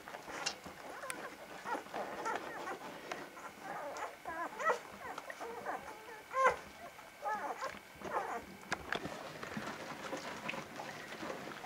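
Young vizsla puppies nursing and crawling in the whelping box, giving short pitched cries every second or two, the loudest a little past halfway.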